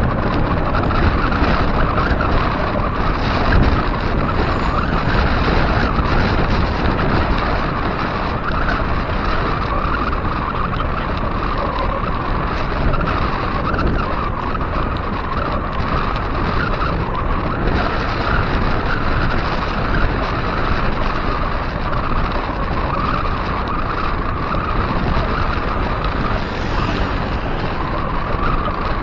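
Steady wind rushing over an action camera's microphone on a bicycle riding at about 20 mph, with the rolling noise of wide tyres on pavement mixed in.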